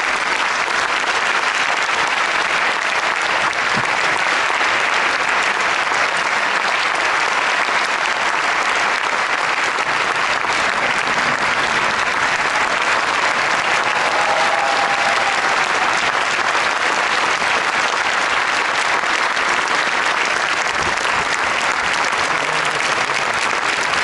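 Large theatre audience applauding steadily, a dense even clapping for the cast's curtain call at the end of an opera.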